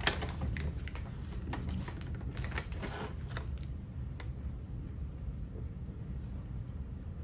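Crinkling and rustling of a plastic candy bag as a hand rummages inside it, a dense run of crackly clicks that stops after about three and a half seconds, over a low steady hum.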